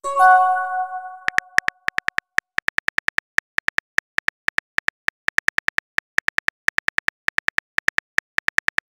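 A chat app's incoming-message chime, a short bell-like tone that fades over about a second. It is followed by a long run of quick keyboard tap clicks, about six a second, as a message is typed on the on-screen keyboard.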